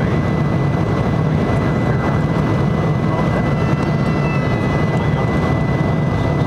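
Jet airliner in flight heard from inside the cabin: a loud, steady roar of engines and rushing air, with a thin steady high whine running through it.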